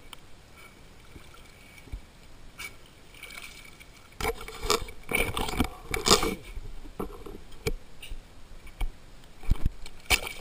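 Water sloshing and splashing right against a waterproof camera-mask held at the water surface. There is a quiet lap at first, then a run of irregular splashes from about four seconds in, and scattered ones near the end.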